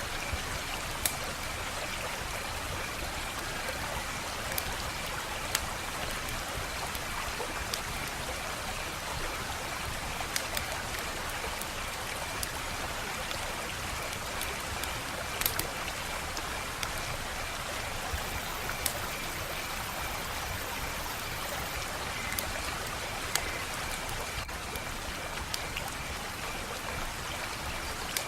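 Fire crackling: a steady hiss of burning with sharp pops and snaps scattered irregularly, about one every second or two, over a faint steady high-pitched tone.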